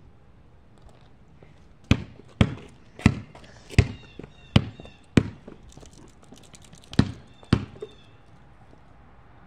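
Basketball bouncing on a concrete driveway: six sharp bounces about two-thirds of a second apart, then two more after a short pause.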